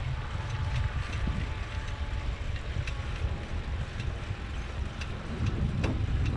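Wind buffeting a moving microphone: a steady rough low rumble with an even hiss above it and a few faint ticks.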